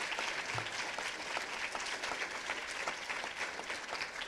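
Audience applauding: many hands clapping at a steady level, easing off slightly near the end.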